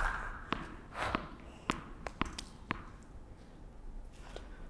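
Scattered sharp taps on an indoor tennis court between points: a tennis ball bouncing and players' footsteps. The taps are unevenly spaced, the loudest right at the start, and they thin out in the second half.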